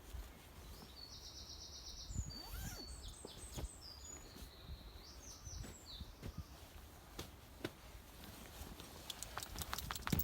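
A songbird singing: a fast trill followed by a string of varied high notes for a few seconds, with scattered soft knocks and rustles of handling, and a quick run of clicks and knocks near the end.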